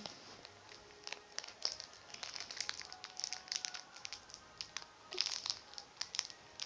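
Plastic wrapper of a bag of Fini gummy candies crinkling and crackling in irregular bursts as hands work at a packet that is hard to open.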